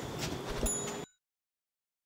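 Faint background noise with a couple of soft knocks, cutting off abruptly to dead silence about a second in.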